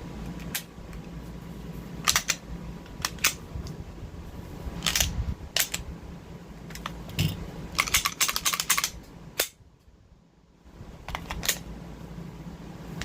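Sharp mechanical clicks and clacks of a Springfield XD9 9mm pistol being handled, scattered singly and then in a quick run about eight seconds in, over a steady low hum.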